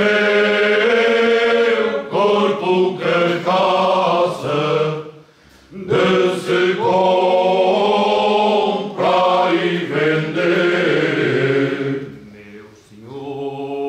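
Men's choir singing Cante Alentejano, the traditional unaccompanied part-song of the Alentejo, in long held phrases. There is a short pause about five seconds in and another near the end before the next phrase starts.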